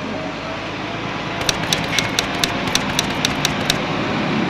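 A vehicle engine running steadily. About a dozen sharp clicks come quickly over a couple of seconds in the middle, about five a second.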